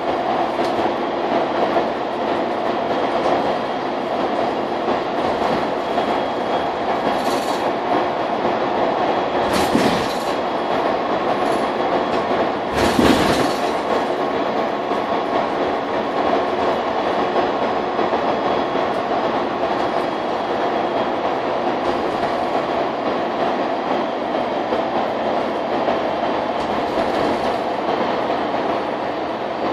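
Mercedes-Benz Citaro K city bus under way, heard from inside the passenger cabin: a steady engine and drivetrain drone with a constant whine. Two sharp knocks come about ten and thirteen seconds in.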